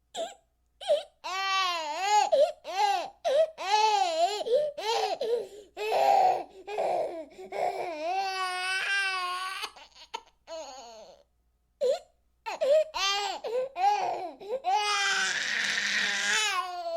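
Baby vocalizing in short, high-pitched cries and laughs with brief pauses between them, some wavering in pitch, and a breathy burst near the end.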